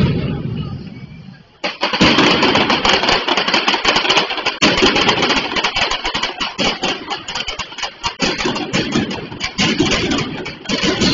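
Mascletà firecrackers: one loud bang rings away at the start, then from about two seconds in there is a dense, unbroken rattle of sharp firecracker bangs, many a second.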